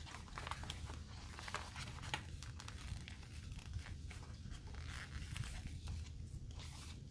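Paper sticker sheets being handled and a letter sticker peeled off its backing: irregular crinkling and tearing rustles.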